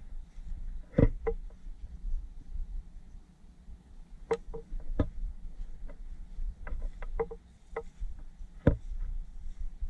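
Wind rumbling on the camera's microphone, with a dozen or so sharp clicks and knocks at uneven intervals from the camera being handled as it is carried. The loudest knocks come about a second in and again near the end.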